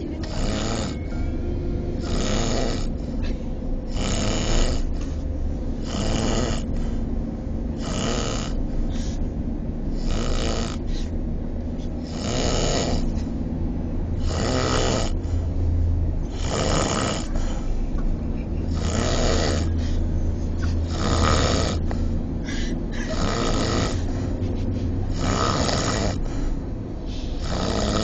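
A sleeping person snoring loudly, one long snore roughly every two seconds, on and on in a steady rhythm.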